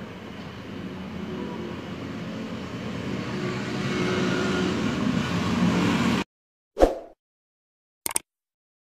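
A motor vehicle's engine and road noise, growing steadily louder for about six seconds before cutting off abruptly. Then comes a short swish and, about a second later, a sharp click from an on-screen subscribe-button animation.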